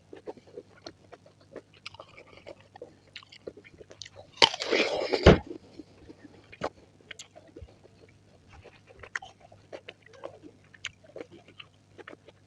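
Close-miked ASMR fruit eating: wet chewing clicks and smacks throughout, with one loud crunching bite about four and a half seconds in that lasts about a second.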